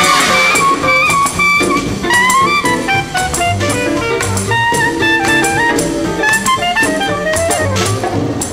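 Up-tempo big-band lounge instrumental from a 1960 easy-listening LP, with brass carrying a quick stepping melody over a drum kit.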